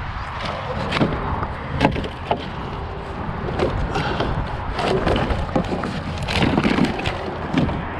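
Scrap lumber pieces knocking and clattering against each other as they are pulled from a pile, in a string of irregular sharp wooden knocks.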